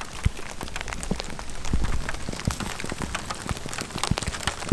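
Mixed rain and snow falling, pattering in many irregular drop hits.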